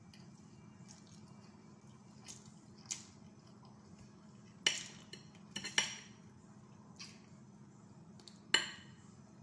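Metal forks clinking against a plate as noodles are twirled and lifted: about seven sharp clinks, the loudest about halfway through and near the end.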